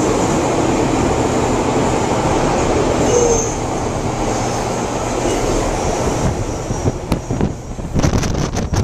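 TranzAlpine train running, heard from its open-air viewing carriage: a loud, steady rumble of the wheels on the rails with rushing air. There is a brief squeal about three seconds in, and a run of sharp clacks near the end.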